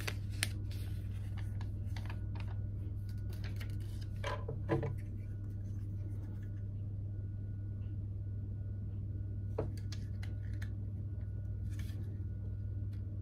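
Small plastic LEGO pieces clicking and rattling as they are handled and pressed onto a model car, a scattered handful of clicks with a pair about four seconds in, over a steady low hum.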